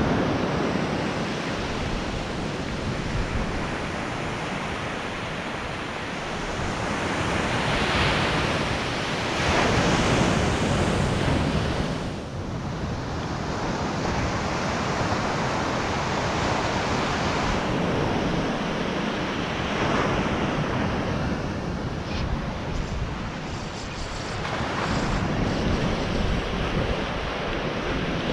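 Atlantic surf breaking and washing up a sand beach, a steady roar that swells and eases every few seconds as each wave comes in, with wind rumbling on the microphone.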